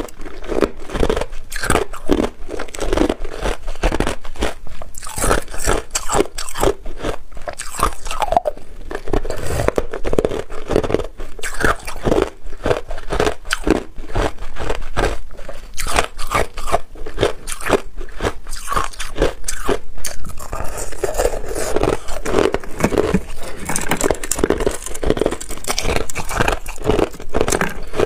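A person biting and chewing white ice, loud and close: a dense, irregular run of crisp crunches as the ice breaks between the teeth.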